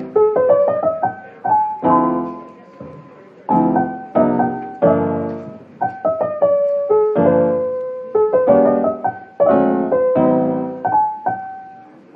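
Background piano music: single notes and chords struck and left to ring away.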